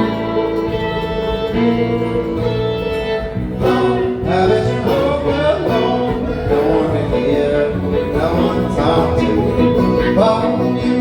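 Country/bluegrass-style music with acoustic guitar and fiddle.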